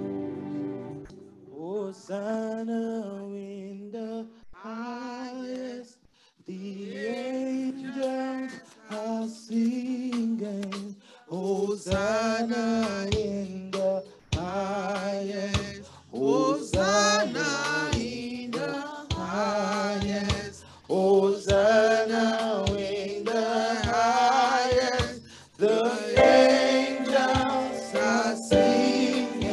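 Worship song during a church service: a sung melody with instrumental accompaniment. A steady drum beat joins about eleven seconds in.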